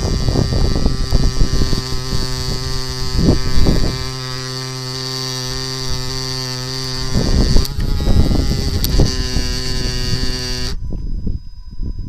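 Steady electrical hum and high whine from a brushless camera gimbal's motors, with irregular low rumbles underneath; the hum cuts off suddenly near the end.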